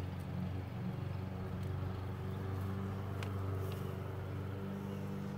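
A steady low mechanical hum at an even pitch, as of a motor running, with a couple of faint clicks about three seconds in.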